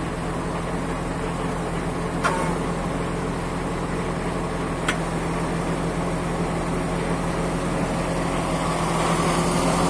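Truck engine running steadily to drive a truck-mounted HDS loader crane's hydraulics while it handles pallets of concrete blocks, with two short sharp clicks about two and a half seconds apart. The engine gets a little louder near the end.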